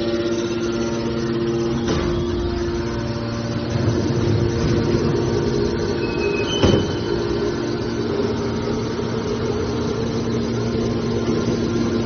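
Hydraulic power unit of a scrap metal baler, an electric motor driving a hydraulic pump, running with a steady hum. Two short knocks, about two seconds in and again about two-thirds of the way through, the second louder.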